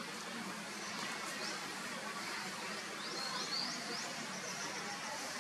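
Steady outdoor background hiss with a few short, high chirps that rise quickly in pitch, a quick run of about five of them a little after three seconds in.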